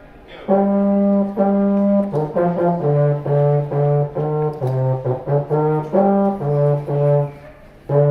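Baritone horn playing a melody: two long held notes about half a second in, then a run of shorter notes, with a brief pause near the end.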